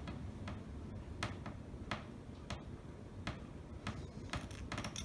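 Short, sharp strokes of a small hand file cutting into a key blank, spaced irregularly about one or two a second.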